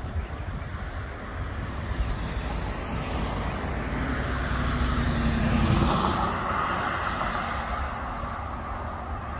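A car driving past on the road: its engine and tyre noise swell to a peak about six seconds in, then fade, over a steady low rumble.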